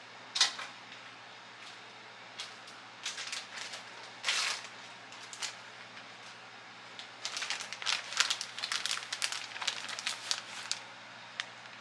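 Plastic bag of shredded cheese crinkling and crackling as a hand reaches in and grabs cheese to sprinkle, in scattered rustles and then a dense run of crinkling in the second half.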